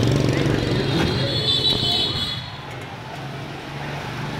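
Street traffic: a motor vehicle engine runs close by with a steady low hum, then fades a little after two seconds in. A brief high-pitched tone sounds near the middle.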